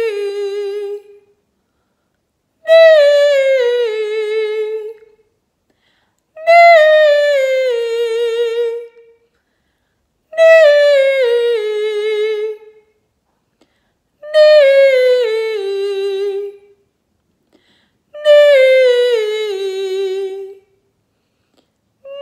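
A woman singing alone in lyric (operatic) style, a resonance warm-up exercise. A short phrase steps downward and ends on a held note with vibrato, repeated about every four seconds with short silences between.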